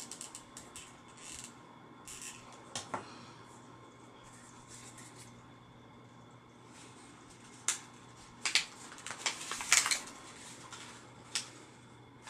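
Stiff paper cones rustling and crinkling as they are handled and pressed into place by hand. The crinkles come in short sharp bursts, clustered in the second half.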